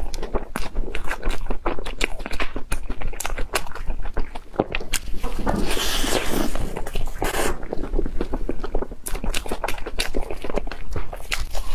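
A person biting and chewing a fried red-bean-paste puff, close to a clip-on microphone: a steady run of short, sharp mouth clicks and crackles of chewing.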